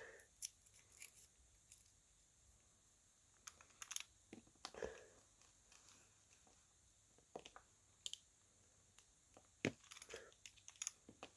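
Faint, scattered tearing and crinkling of tape being cut and handled, with small clicks.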